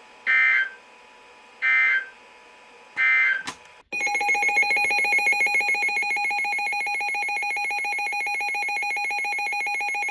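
Emergency Alert System / NOAA Weather Radio alert opening: three short screeching SAME digital header bursts about a second apart, then a steady electronic attention tone from about four seconds in. The tones announce a new warning, here a blizzard warning.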